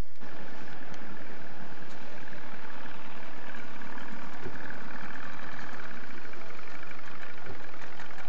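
A boat engine running steadily under a constant hiss.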